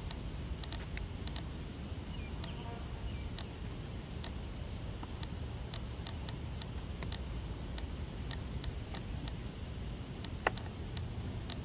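Wind rumbling on a small onboard camera microphone, with scattered faint ticks and clicks and one sharper click near the end.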